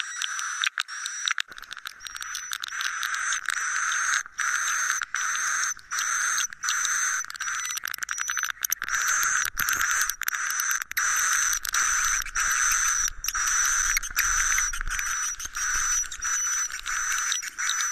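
A recorded edible-nest swiftlet 'suara inap' (roosting call) track, the lure sound played in swiftlet houses to get the birds to settle and roost. It is a steady twittering chatter with a short high chirp repeating about twice a second and scattered sharp clicks.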